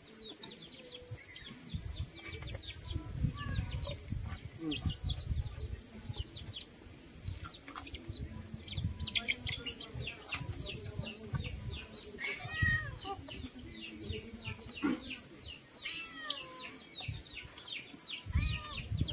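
Chickens calling: a rapid stream of short, falling peeps with a few lower clucks, over a steady high-pitched hum and a low rumble.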